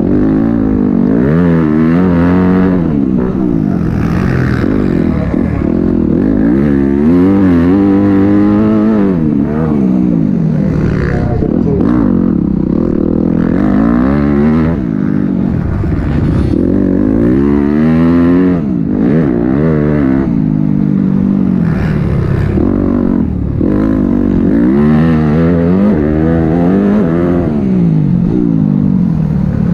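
Yamaha motocross bike's engine being ridden hard, its pitch rising and dropping again every couple of seconds as the throttle is opened and shut through the track's sections.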